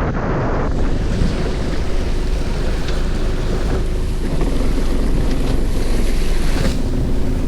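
Wind buffeting the microphone over steady sea noise on a fishing boat, with a low rumble from the boat underneath.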